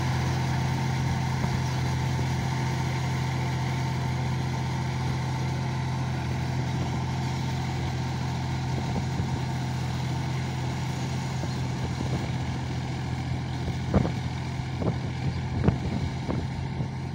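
John Deere 5045D tractor's three-cylinder diesel engine running steadily as it drives a rotavator through a flooded paddy field, fading slightly as the tractor moves away. A few sharp knocks come near the end.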